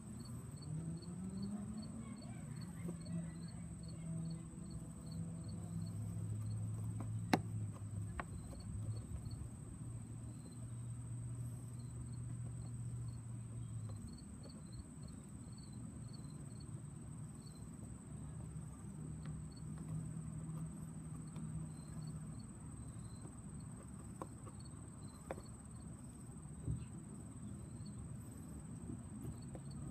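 Faint outdoor ambience: short high chirps of an insect repeating about three times a second in stretches, over a low steady hum that rises at the start and comes and goes. There is a single sharp click about 7 seconds in.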